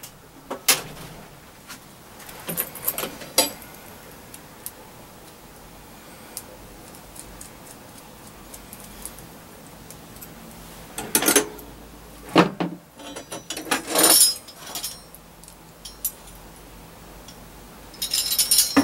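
Small metal hardware clinking and rattling: nuts and screws handled and fitted by hand to a small metal strap on an antenna element. A few clicks come at first, then a quiet stretch, then clusters of clinks in the second half and near the end.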